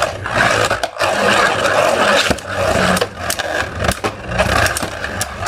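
Two 3D-printed plastic Beyblade Burst tops spinning and colliding in a stadium: a continuous grinding scrape broken by frequent sharp clacks as they hit.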